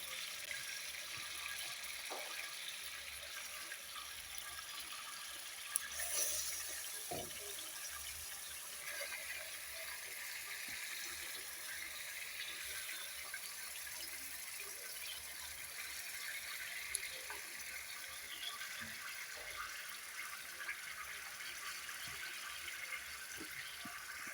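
Chicken pieces frying in a pot of hot salted oil, a steady quiet sizzle with a few faint knocks now and then.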